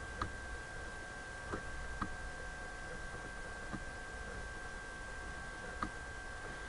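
Quiet room tone with a steady faint electrical whine, broken by a few soft, scattered clicks of the input device as a formula is handwritten on screen.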